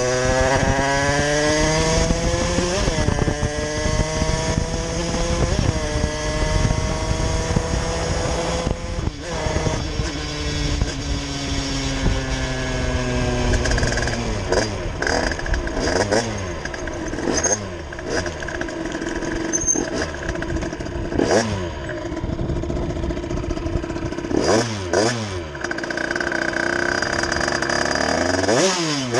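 Derbi two-stroke engine with a 70cc Airsal cast-iron kit, 19 mm Dellorto carburettor and Bidalot expansion pipe, pulling up through the gears with the pitch climbing and dropping at each shift, then revved up and down in quick blips over the second half.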